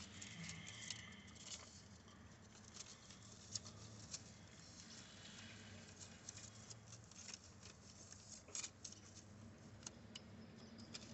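Near silence: faint scattered clicks and rustling of paper coupons being handled, over a low steady hum.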